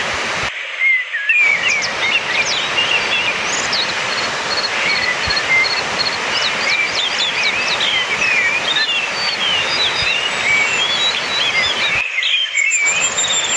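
Orange-headed thrush singing a fast, varied string of whistled phrases and chirps, with a quick run of evenly repeated high notes, over a steady rushing background noise. The background drops out briefly twice, about half a second in and near the end.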